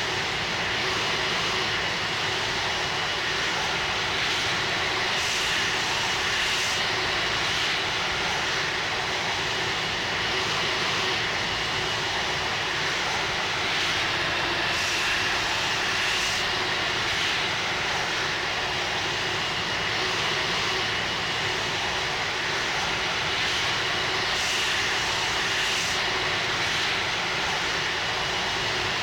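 Airbus A330-300 jet engines running steadily: an even rush of engine noise with a thin, steady high whine.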